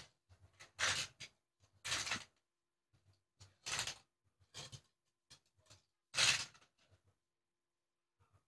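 Toy cars crashing and clattering together: a run of about seven short, separate knocks and rattles at uneven intervals, the loudest a little past six seconds in.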